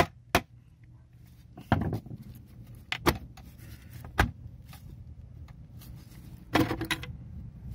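Metal parts inside an opened 6T45 automatic transmission case clinking and knocking as gloved hands work among the clutch drum and plates: a handful of separate sharp clicks and taps, with a short clattering run near the end.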